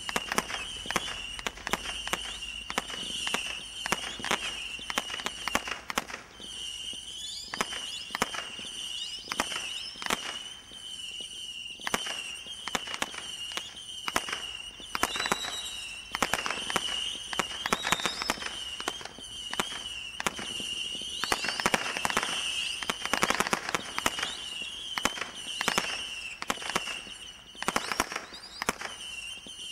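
Firework cake rapidly firing screeching penlid shots: a near-continuous shrill, wavering whistle punctuated by dozens of sharp bangs, which come thickest about two-thirds of the way through.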